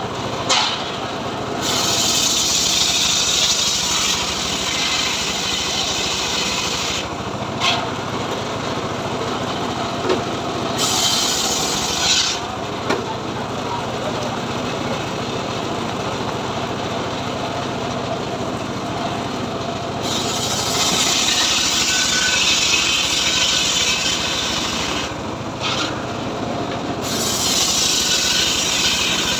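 Homemade circular sawmill's blade cutting lengthwise through a log. The hissing rasp of the saw in the wood comes in four stretches of a few seconds each over the machine's steady running, which is lighter in the gaps between cuts.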